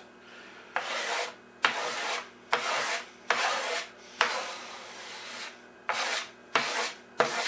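A hand rubbing across a wooden cabinet top in about eight quick strokes, each a short dry hiss with a sharp start; one stroke in the middle runs longer.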